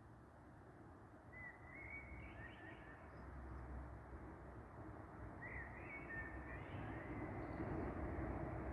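A bird singing at night: two short warbling phrases, one about a second and a half in and another about five and a half seconds in. Underneath is a faint, steady low rumble and hiss that grows louder toward the end.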